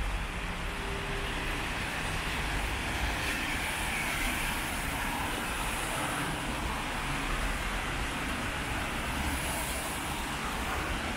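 Steady city traffic on rain-wet streets: an even wash of tyre and engine noise over a low rumble.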